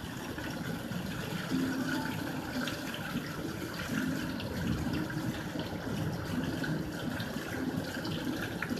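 Torrential downpour: a dense, steady rush of heavy rain falling and splashing.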